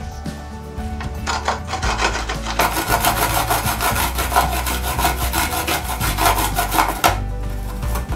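A garlic clove rubbed back and forth on a plastic grater, a quick rhythmic rasping scrape. It starts about a second in and stops shortly before the end.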